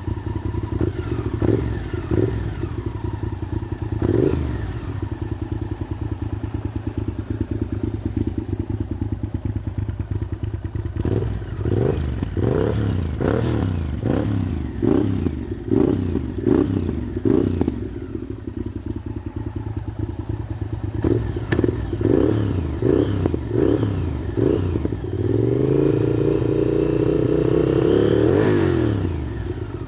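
Honda VTR1000F Firestorm's 90-degree V-twin, fitted with Scorpion straight-through silencers, idling with a few throttle blips. Around the middle comes a quick string of revs, then more blips, and near the end the engine is held at higher revs for about three seconds before dropping back to idle.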